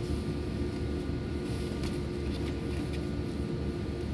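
Steady low cabin drone of an Airbus A320 standing on the taxiway, its engines at idle and cabin air running, with a few faint clicks about halfway through.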